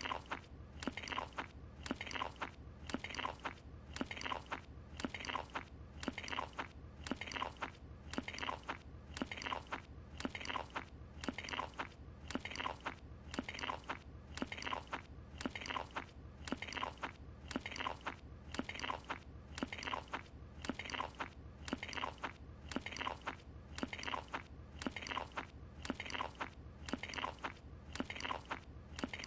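A cartoon character chewing a croissant, the same crunchy chew repeating evenly about once a second as a loop.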